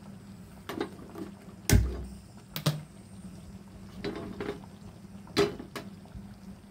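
Stovetop cooking sounds over a steady low hum: scattered sharp clicks and soft pops while oil heats in a small tempering pan on a gas burner, with one heavier thump about two seconds in.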